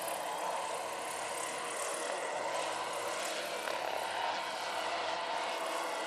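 Large electric scale model AH-1 Cobra helicopter in flight, with a steady whir of its rotor and electric drive carrying a faint constant high tone.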